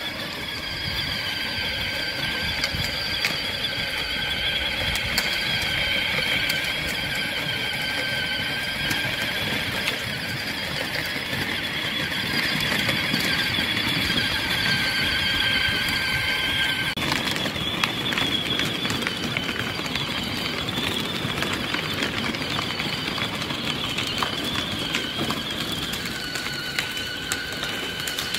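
Electric motors and plastic gearboxes of a children's battery-powered ride-on toy quad bike, giving a steady high whine while driving, over the rumble of its plastic wheels on paving stones. The whine's pitch pattern changes a little past halfway.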